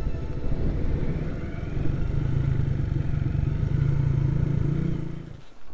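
Motorcycle engine running steadily, its pitch rising slightly, then stopping abruptly about five seconds in.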